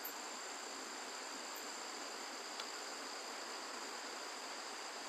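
Faint, steady insect chorus, a continuous high-pitched drone of calling insects, with one faint click about halfway through.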